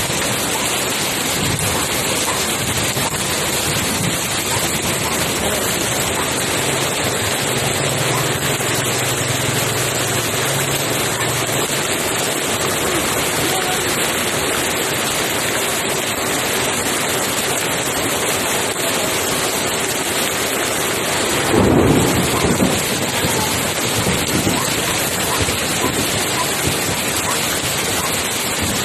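Heavy downpour: rain pelting the pavement and splashing into shallow floodwater in the street, a dense, steady hiss. About three-quarters of the way through, a brief louder low sound breaks through the rain.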